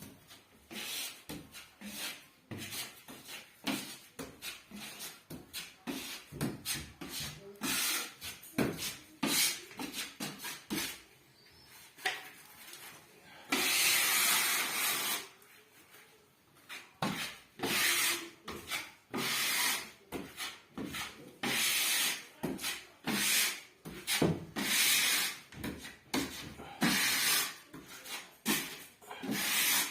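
Steel putty knife scraping filler across plasterboard in a quick series of short strokes, with one longer stroke about fourteen seconds in.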